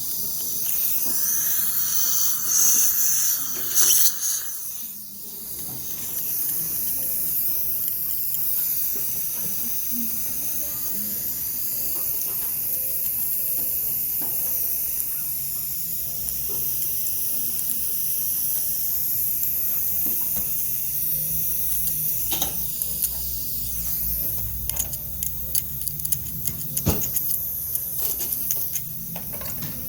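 Steady high hiss of dental scaling equipment, an ultrasonic scaler with its water spray and the suction, working on a patient's teeth. It is louder for the first few seconds, briefly drops away, then carries on evenly, with scattered clicks and taps near the end.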